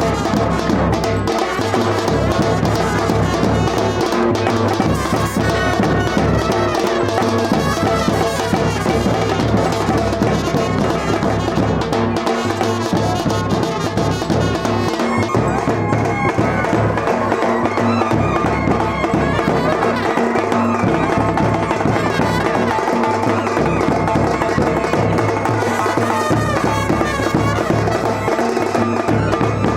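Music with brass and drums, playing steadily with a regular beat.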